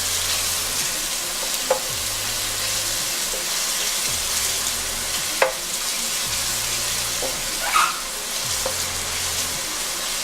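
Chopped onion and garlic sizzling in hot oil in a pot, with a steady hiss, while a spoon stirs them and knocks against the pot a few times.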